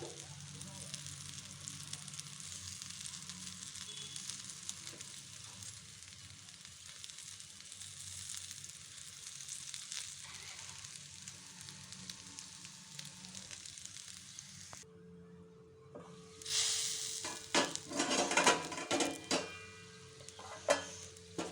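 Stuffed baby eggplants frying in oil in a pan, sizzling steadily; in the last few seconds the sizzling gets louder, with several sharp clatters.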